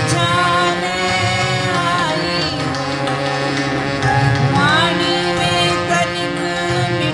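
Devotional bhajan: a woman singing over long held accompanying notes, with tabla.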